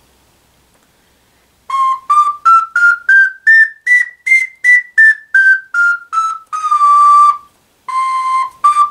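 Wooden soprano C ocarina playing a scale of separate notes, stepping up about an octave and back down. Then comes a longer held note and a couple of short notes near the end.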